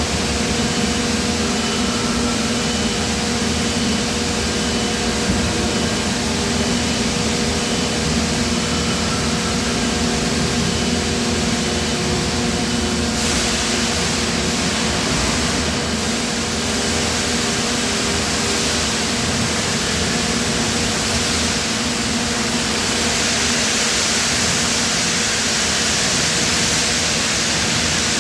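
Steady industrial hum and hiss of a running UBE 850-ton die casting machine and its plant, with a faint high beep repeating on and off. The hiss grows brighter about halfway through and again near the end.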